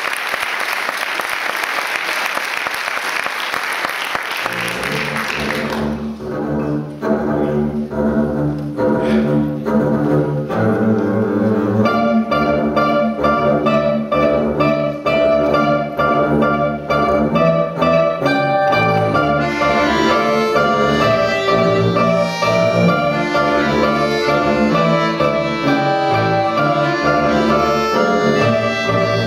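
Live instrumental intro by a manouche (Gypsy-jazz) band: an even wash of noise at the start gives way to low bass notes about four seconds in, then strummed chords. About twelve seconds in, melody instruments join over the bass and rhythm.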